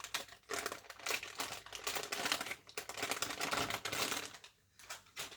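Makeup wipes and their plastic packet crinkling and rustling as they are handled close to the microphone: a dense run of rustling that stops about four and a half seconds in, then two brief rustles near the end.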